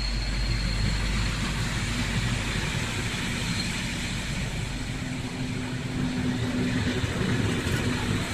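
Passenger coaches rolling past along a platform: a steady rumble of wheels on the rails, with a low steady tone joining about five seconds in.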